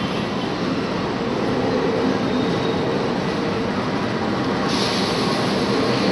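CC206 diesel-electric locomotive running light on a shunting move, its engine droning and its wheels rolling on the rails as it approaches slowly. A sharper high hiss comes in about three-quarters of the way through.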